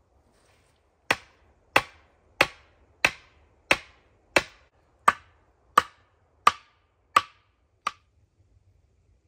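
Eleven steady hammer blows on the top of an upright wooden pole, about one and a half a second, driving it into the ground; the last blow is lighter.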